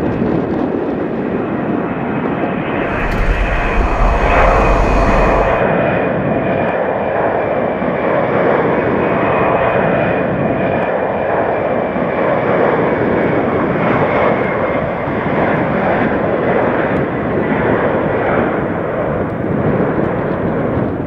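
Ilyushin Il-78M-90A tanker's PS-90A turbofan engines running at high power on the take-off run and climb: a steady loud rush with a thin high fan whine. About three seconds in, an extra hiss and low rumble join for a couple of seconds.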